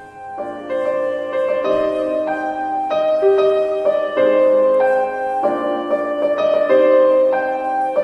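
Background music: a keyboard tune of sustained chords, the notes changing about every half second.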